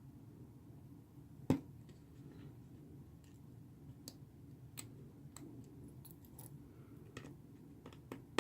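Small scattered clicks and ticks of a precision screwdriver and tiny screws against a smartphone's plastic frame, with one sharper click about one and a half seconds in.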